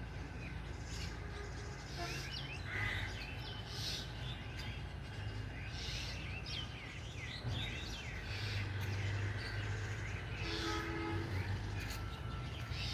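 Small birds chirping over and over in quick high calls, over a steady low hum.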